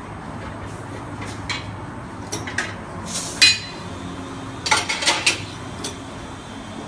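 Metal clanks and clinks of tools against a car wheel as a tyre is worked off the rim: scattered sharp knocks, a ringing one about three and a half seconds in and a quick cluster around five seconds, over a steady low hum.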